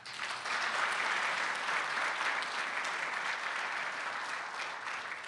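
Audience applauding. It starts at once, with dense clapping, and gradually tapers off near the end.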